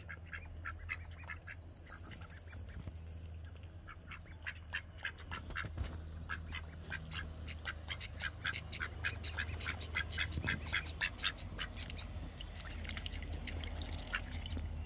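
Pet ducks giving rapid, short, soft quacks, growing busier from about four seconds in, over a low steady hum.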